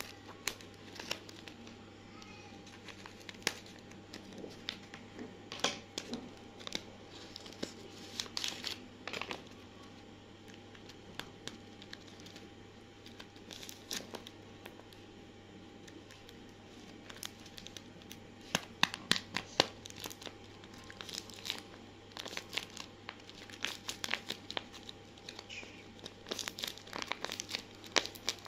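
Handmade paper blind-bag packets, covered in clear tape, being cut, torn and handled: irregular bursts of paper and tape crinkling and tearing, with quieter stretches in between.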